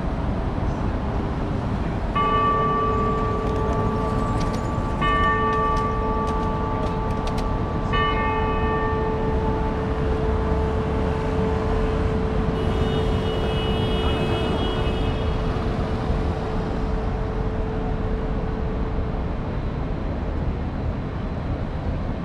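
A large bell struck three times, about three seconds apart, each stroke ringing on long after it, over steady city traffic noise.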